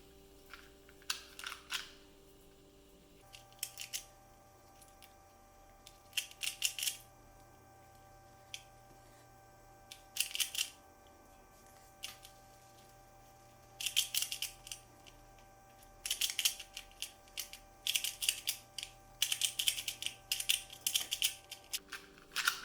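Plastic 2x2 Rubik's cube being turned during a solve: bursts of rapid clicking as the layers snap round, in clusters with pauses between, coming thick and fast near the end.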